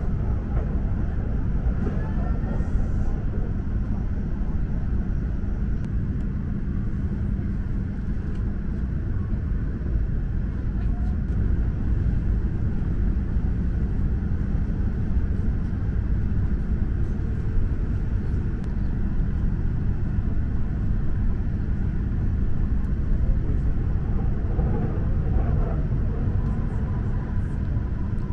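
Cabin running noise of an E7 series Shinkansen in motion: a steady low rumble that holds even throughout.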